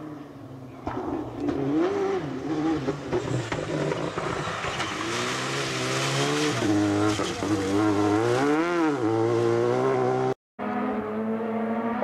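Citroën DS3 rally car's engine revving hard as it drives past, its pitch climbing and dropping several times through gear changes and lifts off the throttle. The sound cuts out abruptly near the end and then resumes with a steadier engine tone.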